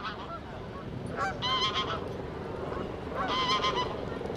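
Two honking calls from a large waterbird, the first about a second in and the second after about three seconds.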